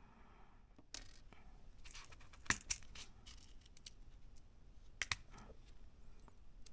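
Sharp clicks and light clatter of small plastic and metal parts and tools being handled while assembling a Mini 4WD MS chassis; the loudest clicks come in a cluster about two and a half seconds in and a pair around five seconds.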